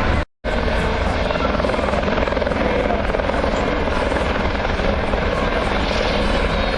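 Eurocopter EC120B Colibri helicopters flying, a loud steady din of turbine and rotor chop. It cuts out for a split second near the start.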